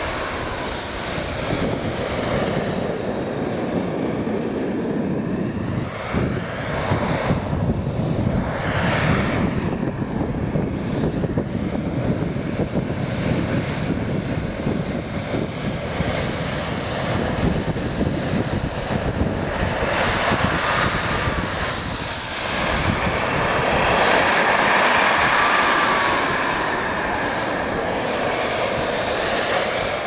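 Radio-controlled model jet's engine whining on the ground, the high whine dropping in pitch just after the start, holding steady, then rising and falling several times in the last third as the throttle is worked, over a steady rushing noise.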